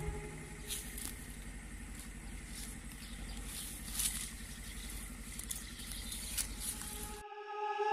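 Faint outdoor field sound: a low steady rumble with light rustling and scattered clicks as leafy custard apple branches brush past the phone's microphone.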